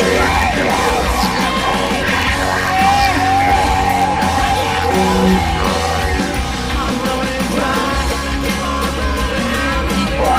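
Rock music: a full band with heavy bass and a singer wailing and yelling over it.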